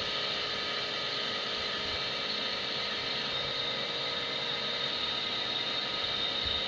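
LESU 1/14 scale RC Komatsu PC360 hydraulic excavator running steadily, its electric pump motor making a constant high whine over a whirring mechanical hiss.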